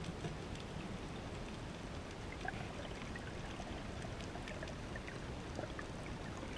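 Underwater ambience: a steady low rush with scattered small clicks and bubbling blips.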